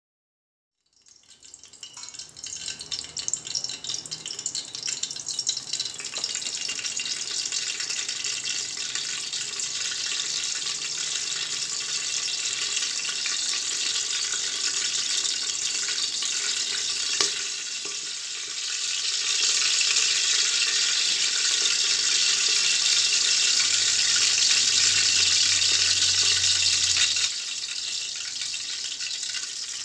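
Oil sizzling as it heats in an aluminium pressure cooker on a gas stove. The steady hiss starts about a second in, grows louder in the second half, then drops back near the end, with one sharp click partway through.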